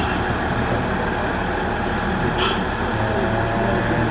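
Diesel railcar engine idling steadily under a hiss of rain, with a short burst of hissing about two and a half seconds in.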